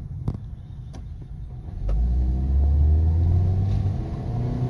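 Honda Civic four-cylinder engine accelerating hard, its note rising steadily from about two seconds in, then dropping as the transmission shifts up near the end. The slight hesitation at that shift, around 2,500 rpm, is the hiccup that the owner traces to a broken intake hose letting in extra air.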